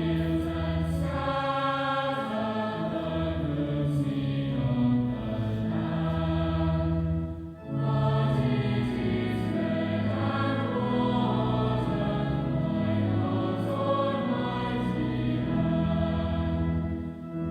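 A choir singing slow music in long held chords over a steady low bass, with a short pause between phrases about seven and a half seconds in and again near the end.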